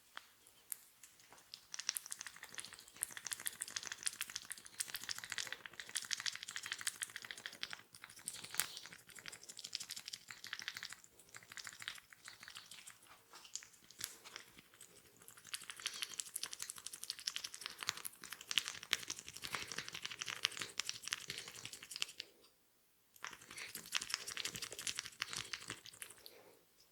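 Fingers scratching through hair and rubbing skin during a head and ear massage: a dense, continuous run of fast crackling scratches, broken by a short pause about 22 seconds in.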